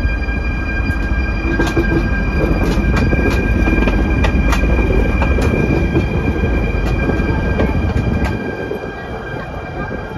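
Vossloh DE 18 diesel-electric locomotive passing slowly at close range: a deep engine rumble with a steady high-pitched whine and sharp clicks of the wheels over the rail at irregular intervals. The rumble drops away about eight seconds in as the locomotive moves off.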